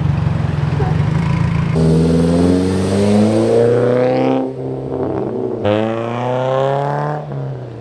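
Car engine running at a steady low idle, then revved up twice, its pitch climbing each time with a short break between the two pulls.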